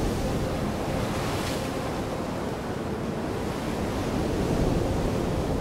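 Sea surf breaking and washing over rocks, a steady rush of waves with wind.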